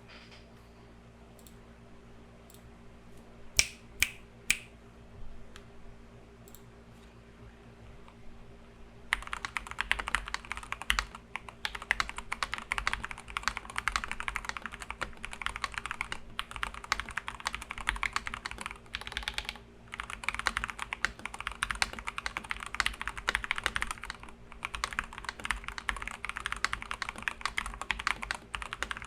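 Mechanical keyboard with stock, unlubed Gateron Pro Yellow Milky linear switches being typed on. A few separate key presses come in the first seconds, the loudest three close together about four seconds in. From about nine seconds in there is fast, continuous typing with a couple of short pauses.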